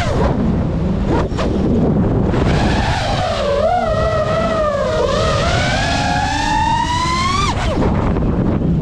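FPV quadcopter's brushless motors whining, their pitch rising and falling with the throttle. The pitch drops away at the start, climbs and wavers, then falls sharply about seven and a half seconds in as the throttle is cut for a flip, and climbs again near the end.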